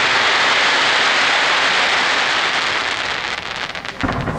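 Fireworks display: a steady loud hiss and sizzle after a gold glitter shell bursts, turning into a run of sharp crackles near the end, then another shell's bang about four seconds in.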